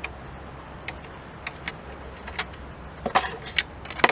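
Scattered clicks and clacks of a Zippo AxeSaw's plastic and metal parts as it is unscrewed and taken apart by hand, with a quick cluster of knocks about three seconds in and another near the end.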